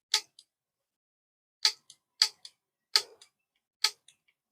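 Piezo igniter wired into a small acetone-bottle spark cannon, clicked five times, each sharp snap followed by a fainter click. It is being test-fired dry to check the spark.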